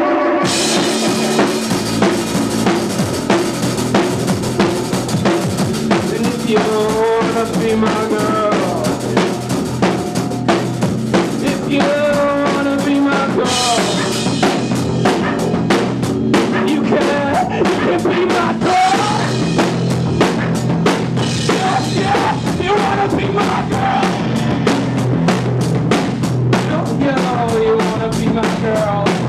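A full band playing loudly, its drum kit keeping a steady beat of kick, snare and cymbals over a sustained bass line, with pitched lines bending in and out above.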